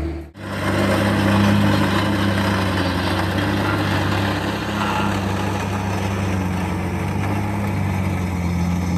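Engine of heavy earthmoving equipment running steadily, used for backfilling and grading the foundation. It drops out for a moment just after the start, then runs on without change.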